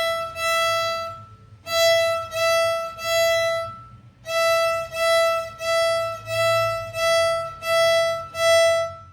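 Violin bowed on the open E string: the same single note repeated in separate bow strokes, two groups of three and then a steady run of about seven, stopping just before the end.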